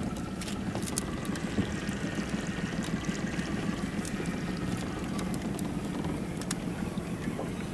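Small boat at sea: a steady low rumble, with water sloshing against the hull and a few scattered sharp ticks.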